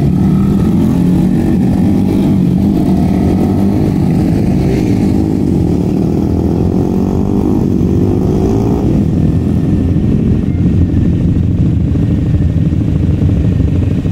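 Several racing motorcycles running together on a track, their engines revving, with the pitch rising and falling as the group rides past.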